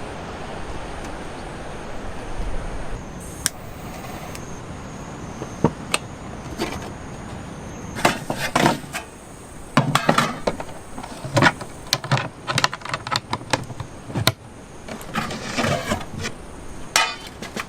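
Steady outdoor background noise, then from about eight seconds in a long irregular run of sharp clicks and knocks.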